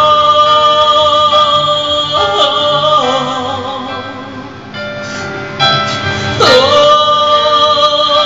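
A man singing long, drawn-out notes of an Indonesian pop ballad. His voice sags in loudness around the middle, then a new note slides up and is held about six and a half seconds in.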